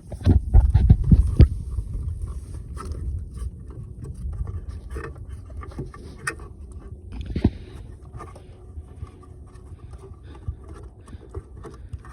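Knocking, scraping and handling noise on a small fishing boat as the anchor line is let out and made fast. A burst of heavy low thumps comes in the first second and a half, then lighter knocks and scrapes, with one sharper knock a little past the middle.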